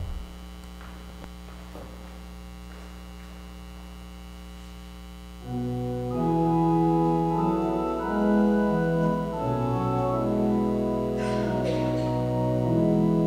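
Steady mains hum with a low thump at the start, then about five and a half seconds in an organ begins playing slow, sustained chords that change every second or so.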